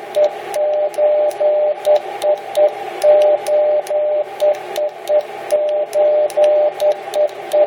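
Morse code (CW) sidetone from a ham radio transceiver, keyed with the microphone's up/down buttons used as a keyer. A steady tone of about 600 Hz comes in short dots and longer dashes, sending SOS over and over. A band of receiver hiss sits under the tone, with faint clicks at the keying.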